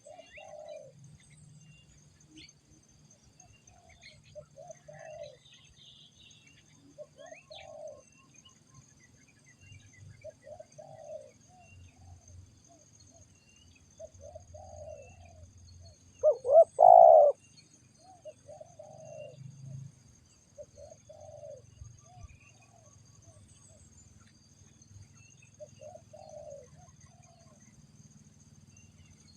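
Spotted dove cooing its repeated phrase every few seconds, with one coo about 17 seconds in much louder than the rest.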